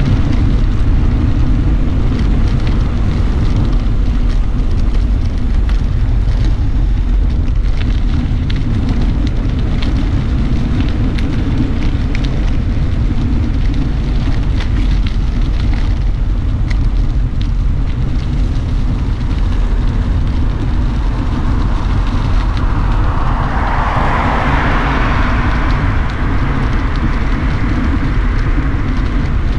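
Wind rushing over a bike-mounted GoPro's microphone while cycling, with the rumble and small clicks of bicycle tyres over block paving. About three-quarters of the way through, a passing car's tyre noise swells and fades.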